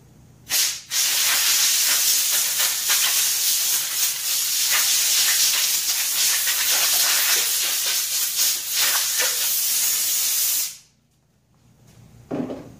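Compressed-air blowgun from an air hose blowing dust out of an old small-engine air filter: a short blast, then one long blast of about ten seconds that cuts off suddenly.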